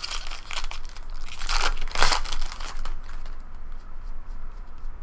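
Trading-card pack wrapper crinkling and tearing as it is handled and opened. The rustle is loudest about two seconds in, then fades to faint scattered ticks.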